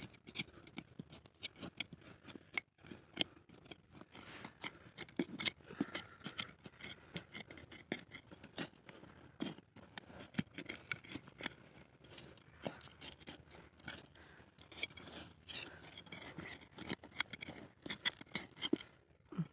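Small pointed metal hand trowel digging and scraping into stony soil: a rapid, irregular run of scrapes and clicks as the blade strikes earth and small stones.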